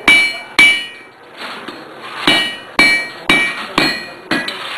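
Hand hammer striking red-hot iron on an anvil, each blow leaving a clear metallic ring. Two blows, a pause of over a second, then five more at about two a second, the last one lighter.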